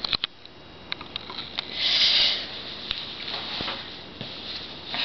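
A person's breathy sniff about two seconds in, among faint clicks and rustles of handling close to the microphone.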